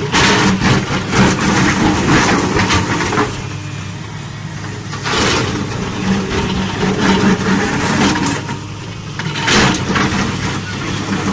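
A JCB hydraulic excavator's diesel engine runs steadily under load while its steel toothed bucket grinds and scrapes at a concrete dam slab. There are loud bouts of scraping and crunching through the first three seconds, again about five seconds in and near the end.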